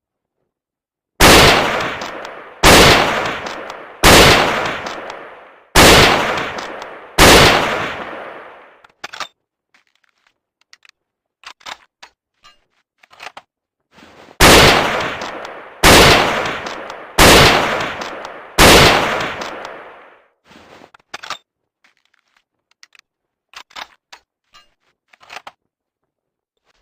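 M39 Mosin-Nagant bolt-action rifle, 7.62×54R, firing five shots about a second and a half apart, each with a long echoing tail. A run of quieter metallic clicks and clacks follows, then four more shots at the same pace and more clicking.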